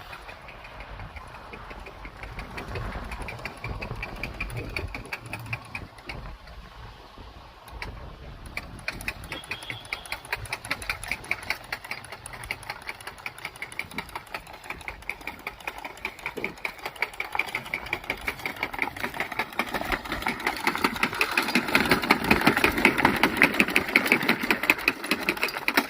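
Manual seeder working, its mechanism clicking rapidly and evenly, growing louder toward the end.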